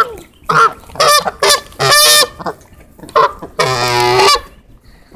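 Canada geese honking close by: a series of short honks, then a longer drawn-out honk about three and a half seconds in.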